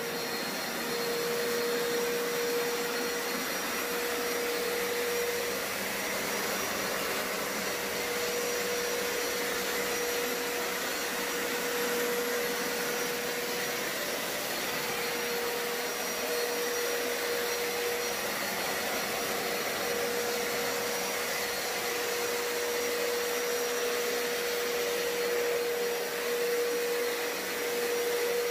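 Hoover Power Scrub Deluxe carpet cleaner running with its hard-floor scrubber tool: a steady motor hiss with a constant whine.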